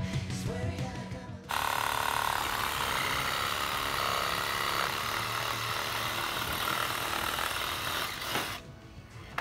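Background music for about the first second and a half, then a cordless reciprocating saw cutting into a fallen tree limb, running steadily for about seven seconds before it stops shortly before the end.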